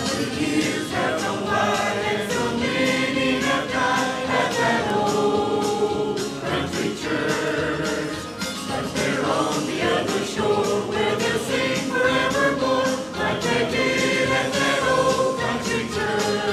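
Church choir or congregation singing a hymn together, many voices in unison and harmony over instrumental accompaniment.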